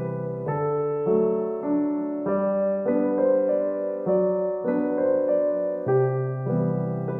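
Background piano music: a gentle piano piece playing steady chords that change every half second or so.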